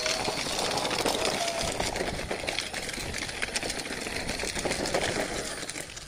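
Children's battery-powered ride-on jeep driving over gravelly dirt: its hard plastic wheels crunch and rattle on the grit, with the electric drive motor running.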